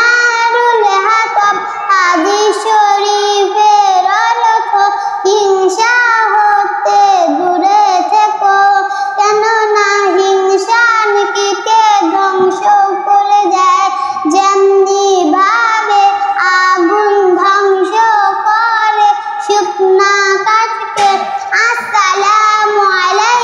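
A young girl singing solo and unaccompanied in a high, melodic voice, with long held notes that waver and bend.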